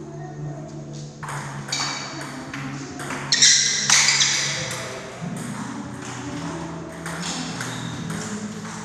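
Table tennis rally: the ball clicks at irregular intervals against the paddles and the table, with a louder stretch of sound about three and a half seconds in, over a steady low hum.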